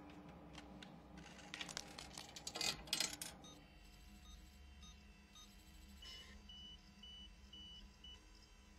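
Computer beeping during a file download: five short, high, evenly spaced electronic beeps, about two a second, over a faint steady hum. Before them come a few brief rustles and clicks, the loudest sounds here.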